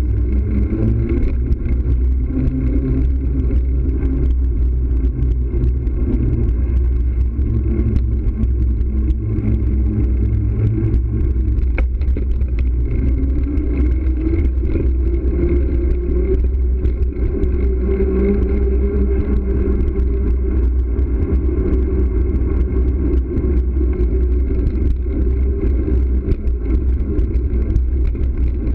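Steady low rumble of wind and road noise on a bicycle-mounted camera while riding on city pavement, with a hum that drifts and slowly rises in pitch partway through.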